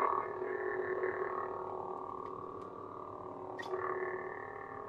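Lightsaber idle hum from a Proffie sound board in a Korbanth MW1 Council saber, a steady electric drone just after ignition, with a brief swell about three and a half seconds in.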